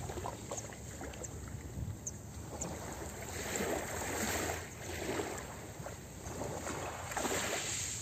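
Small sea waves washing in and out over a pebble beach, the wash swelling every couple of seconds, with a few faint clicks.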